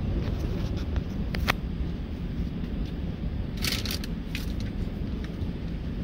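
Car driving on a gravel road, heard from inside the cabin: a steady low rumble of tyres and engine. A few sharp clicks break through, one about a second and a half in and a quick cluster a little past halfway.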